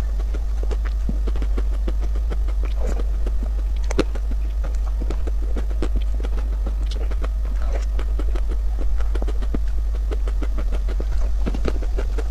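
Close-miked mouth sounds of eating soft cream mousse cake: many small wet clicks and smacks of lips, tongue and a metal spoon, irregular and quick. A steady low hum runs underneath.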